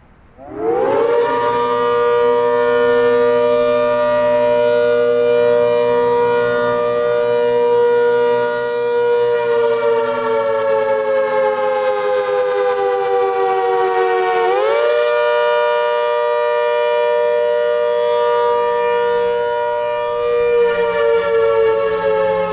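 ACA Hurricane 130 MKII dual-tone mechanical siren spinning up from silence about half a second in and holding a loud steady chord. Its pitch then sags, swings sharply back up about fourteen seconds in, and starts to fall again near the end: the rise-and-fall Attack signal of a siren test.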